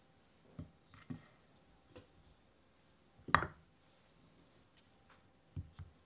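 A few short, light knocks of sunflower-seed bird-feeder cakes being set down in a wooden bowl, about six in all, the sharpest a little over three seconds in and a quick pair near the end.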